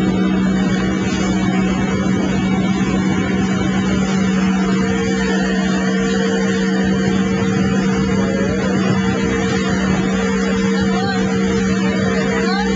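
Motorboat engine running at a steady speed: a constant hum under an even rushing noise, with a second steady tone joining a few seconds in.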